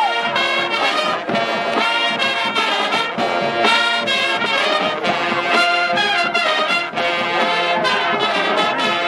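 Marching band playing: massed brass and saxophones sounding sustained chords and melody over regular drum beats.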